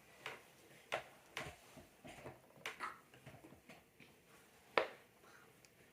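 Soft, scattered pops of silicone pop-it fidget bubbles being pressed down: a few irregular clicks spread over several seconds, the loudest late on.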